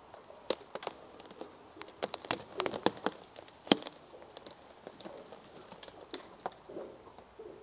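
Irregular cracks and crackling of branches and twigs snapping as a felled tree is moved on a tractor's forklift, thickest from about two to four seconds in, with one sharp crack just under four seconds.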